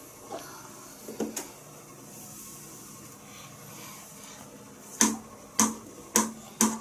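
A child's hand patting a small hollow plastic cup. A few faint taps come first, then from about five seconds in a steady run of sharp pats, about two a second, each with a short hollow ring.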